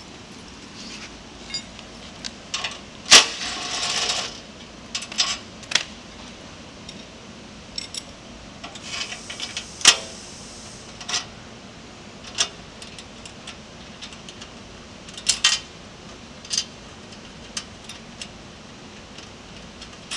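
Small metal parts clinking and tapping as a steel bracket and its bolt are handled and fitted by hand against an aluminium frame. Scattered sharp clicks, with a short scraping rattle about three seconds in and another loud click about ten seconds in.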